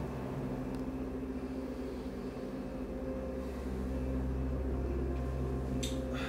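A steady low hum of several held tones, with a short sharp noise near the end.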